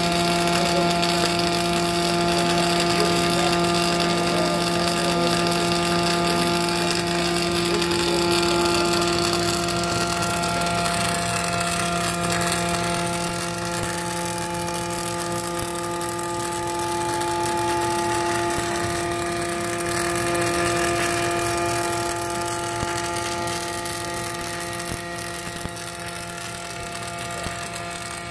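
Metal-cored wire MIG welding arc from a K-BUG 1200 battery-powered trackless welding carriage, welding inside a steel tank: a steady hiss with a steady hum underneath, easing slightly about halfway through.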